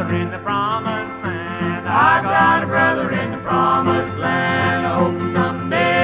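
Background music: a melody line of held, bending notes over a steady accompaniment, with no lyrics sung in this stretch.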